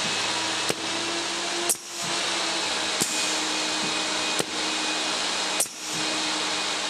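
BK 60 orbital riveting unit running: its spindle motor gives a steady whirring hum, broken by several sharp clicks, two of which are followed by a brief drop in the noise.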